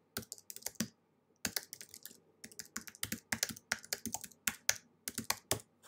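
Typing on a computer keyboard: quick, irregular runs of keystrokes, with a short pause about a second in.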